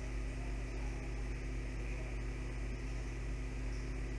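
Steady low electrical mains hum under a soft even hiss.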